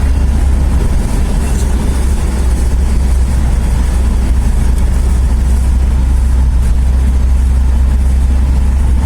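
Steady low rumble of a moving van heard from inside: engine and road noise as it drives along a city road.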